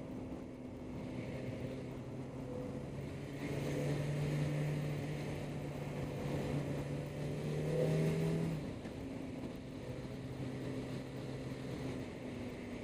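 Motorcycle engine running at cruising speed under a steady rush of riding noise. The engine note grows louder a few seconds in and eases back off after about eight and a half seconds.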